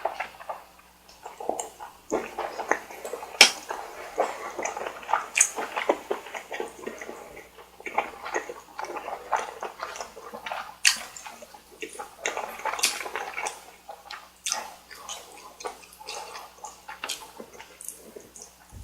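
Close-miked ASMR eating: wet chewing with sticky mouth smacks and sharp clicks, in an uneven run, of spicy stir-fried noodles or chewy rice cake.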